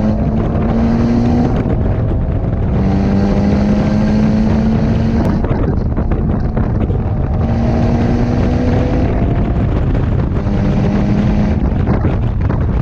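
Mitsubishi Lancer Evolution IX MR's turbocharged 2.0-litre four-cylinder engine working hard on track, heard inside the cabin over heavy road and wind noise. Its pull comes and goes about four times, with short breaks between.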